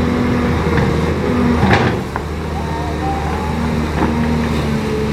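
Caterpillar 320C excavator's diesel engine running steadily, with a few short knocks and one sharp knock about a second and a half in.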